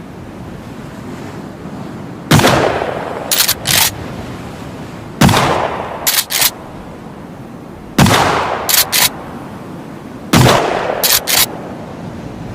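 Remington 870 TAC-14 pump-action shotgun fired four times, about three seconds apart. Each shot is followed about a second later by two short mechanical clacks as the pump is racked back and forward to eject the shell and chamber the next round. A steady hiss sits underneath.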